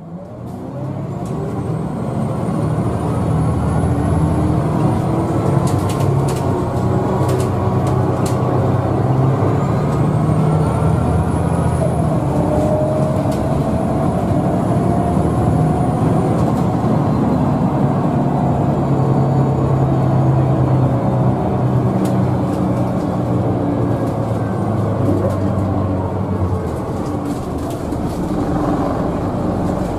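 Scania L94UB bus's rear-mounted 9-litre five-cylinder diesel heard from inside the passenger cabin while under way: a steady low engine note, with thin whines that rise in pitch as the bus gathers speed. A few sharp rattles about six to eight seconds in.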